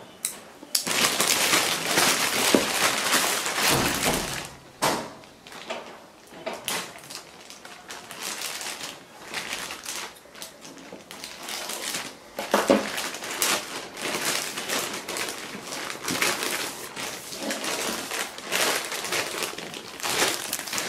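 A delivery package being torn open and handled: paper and plastic packaging rustling, crinkling and ripping. It is loudest in a long tearing stretch in the first few seconds, then comes in irregular scrapes and crinkles.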